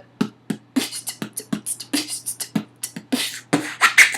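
Amateur mouth beatboxing: a fast pattern of short vocal kick, snare and hi-hat-like sounds, mixed with the crab (abra) scratch, a vocal imitation of a DJ scratching a record.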